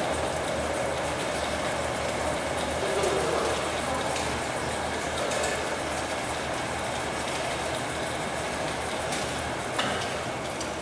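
Stainless-steel snack-food frying machine running: a steady mechanical rattle over a low motor hum, with a few light clicks and one louder knock near the end.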